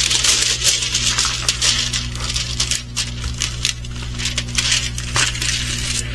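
Plastic packaging of a diamond painting kit rustling and crinkling as it is handled, with many small clicks and taps, louder in the first half, over a steady low hum.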